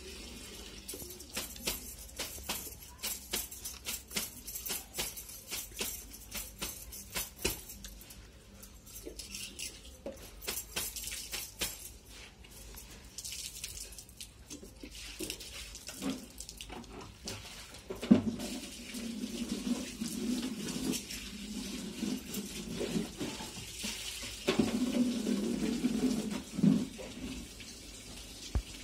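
Eating with the hand: fingers stirring and splashing rice soaked in water in a steel bowl, with many short, sharp mouth clicks from chewing and lip smacking.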